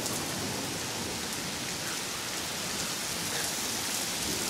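Heavy thunderstorm rain pouring onto a concrete driveway and street, a steady even hiss.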